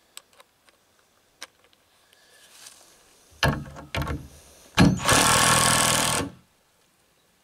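Cordless drill driving a screw through a cast iron bell's mounting bracket into a wooden board: two short bursts, then a steady run of about a second and a half that stops abruptly. A few faint clicks come before it.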